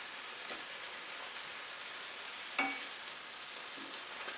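Chicken and pineapple chunks sizzling in a frying pan while being stirred with a wooden spatula, with a steady frying hiss. About two and a half seconds in there is one short knock of the spatula against the pan.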